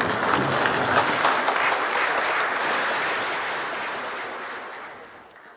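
Hall audience applauding, loudest in the first couple of seconds and dying away toward the end.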